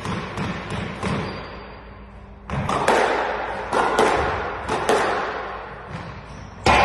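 Squash rally: sharp, echoing smacks of the ball off the rackets and the court walls, coming roughly once a second in the second half, with the loudest hit near the end.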